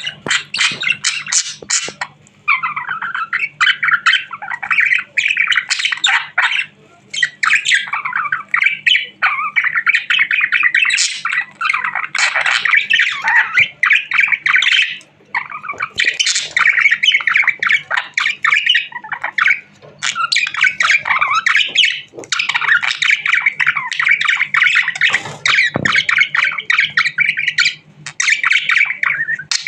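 Budgerigar chattering and chirping excitedly, a near-continuous warble of fast chirps and squawks broken by brief pauses. A faint steady hum sits underneath.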